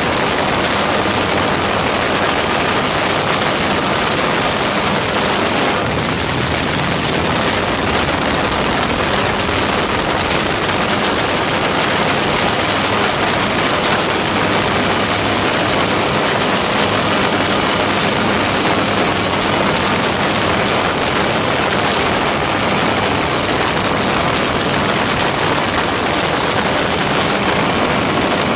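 Hirth F33 single-cylinder two-stroke engine of a MiniMax ultralight running steadily in cruise flight, mixed with loud, steady wind rush on a helmet-mounted microphone.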